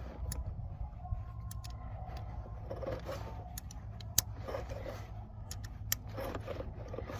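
Scattered light metallic clicks, clinks and scrapes of hand tools and a cable terminal being handled, over a steady low hum.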